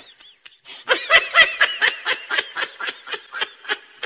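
A person laughing in a quick run of short, high giggles, about five or six a second, trailing off near the end.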